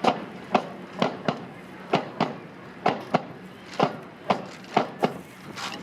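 A drill team's rifle drill done in unison: about a dozen sharp claps and knocks, mostly in pairs a fraction of a second apart, with a pair about every second.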